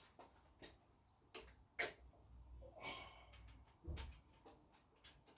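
A few light clicks and knocks of small parts being handled, the two sharpest about a second and a half in, with a short rustle and a dull knock later.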